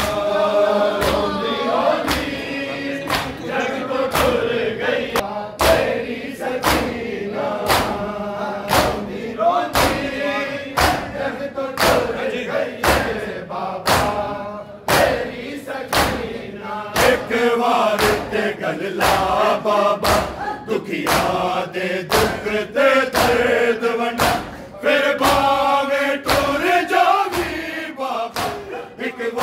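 Group of male mourners chanting a Punjabi noha, a lament for Bibi Sakina, in unison. Steady, fast rhythmic slaps of hands beating on chests (matam) keep time under the voices, more than one a second.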